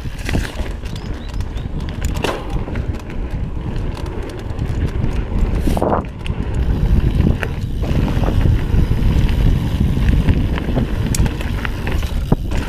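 Mountain bike rolling over a dirt trail, with wind buffeting the bike-mounted camera's microphone and scattered clicks and rattles from the bike.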